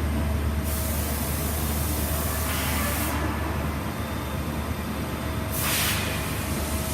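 Dahlih DMV 720 vertical machining centre running with a steady low hum, with a hiss of air or spray from just under a second in for about two and a half seconds, and a second, shorter hiss near the end.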